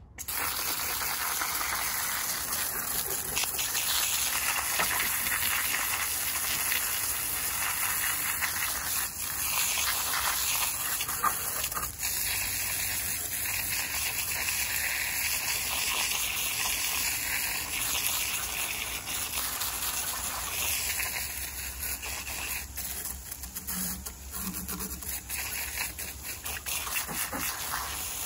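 Garden hose spray nozzle jetting water onto an aluminum anthill casting and a plastic folding table, washing the soil off the casting: a steady hiss and splash of spray. It becomes more uneven in the last few seconds.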